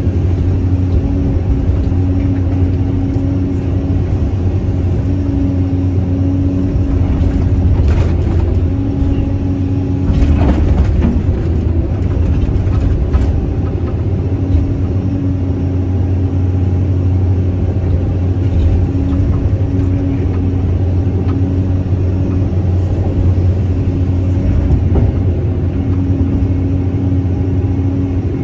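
Caterpillar 320C excavator's six-cylinder diesel engine running steadily under hydraulic load, heard from the cab: a low hum with a steady tone above it that comes and goes. A few knocks from the bucket and soil come about a third of the way through and once more near the end.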